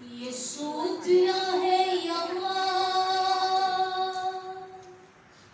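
One voice singing a slow, unaccompanied phrase that ends on a long held note, which fades away near the end.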